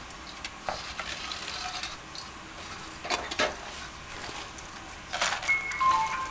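Food frying in a wok, a soft sizzle with a few clinks and knocks of utensils and dishes. Near the end a mobile phone ringtone starts, a short tune of steady notes.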